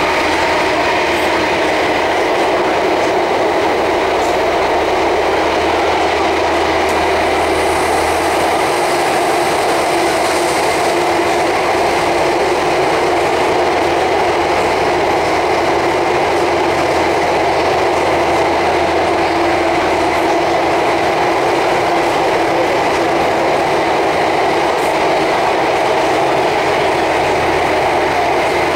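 Cabin noise of an Alstom Metropolis C830 metro train running at a steady speed through a tunnel: a loud, even rumble of wheels on rail with a low hum underneath.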